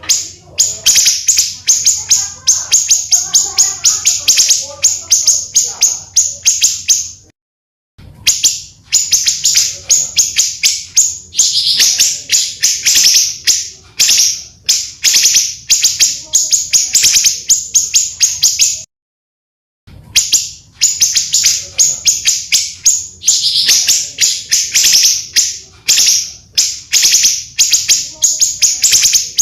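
Small songbirds singing dense, rapid-fire chattering and trilling notes in long rolls, loud and continuous. The song breaks off abruptly into dead silence twice, about a third and two thirds of the way through, before starting again.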